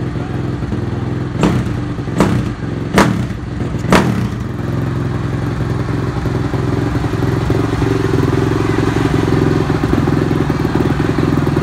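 Small dirt bike engine idling steadily, with four sharp knocks in the first few seconds.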